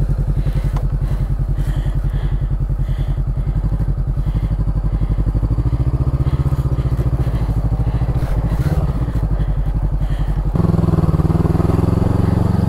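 Honda CB500X's parallel-twin engine running with a fast, even pulse as the motorcycle sets off and rides along a loose sand track. About ten and a half seconds in, the sound changes abruptly to a louder, different engine note.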